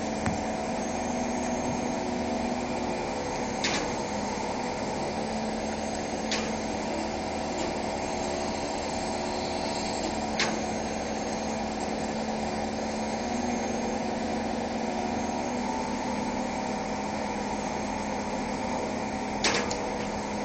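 Steady hum of machinery running, with four sharp clicks spread through it.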